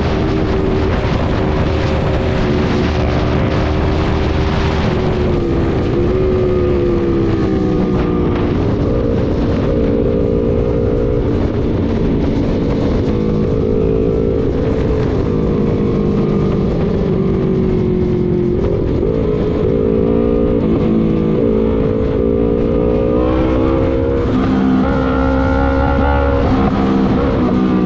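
Sport motorcycle engine heard from the rider's seat while riding, its pitch rising and falling several times as the throttle opens and eases off, over a steady rush of wind on the microphone.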